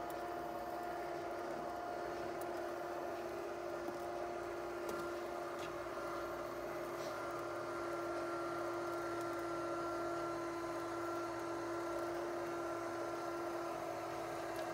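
Litter-Robot 3 self-cleaning litter box running its cleaning cycle: the globe's drive motor hums steadily as the globe slowly turns, with a few faint ticks.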